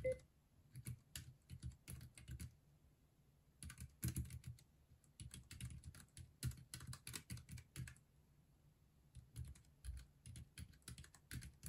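Keys clicking fast on a Keychron K3 low-profile mechanical keyboard fitted with black linear switches, typed in quick runs. There are two short pauses, about three seconds in and again about nine seconds in.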